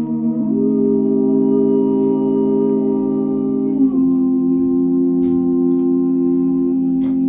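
Sustained organ-like keyboard chords, moving to a new chord about half a second in and again about four seconds in: the instrumental introduction of a slow ballad before the voice comes in.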